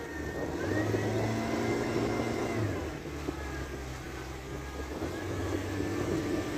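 50 hp Mercury outboard motor running under way, its engine speed rising about a second in, easing back around three seconds, and picking up again near the end.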